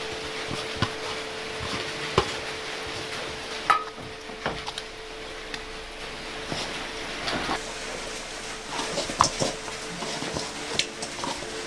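A hand mixing and squeezing coconut roti dough in a stainless steel bowl: a soft, crackly squishing, broken by a few sharp clicks where fingers knock the bowl, one of them ringing briefly. A faint steady hum runs underneath.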